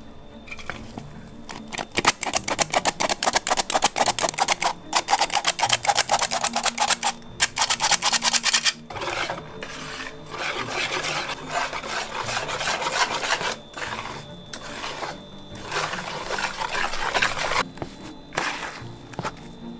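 Metal squeeze-handle flour sifter worked rapidly, its wire agitator rasping flour through the mesh in fast, even strokes for several seconds. This is followed by a softer, continuous rubbing and scraping.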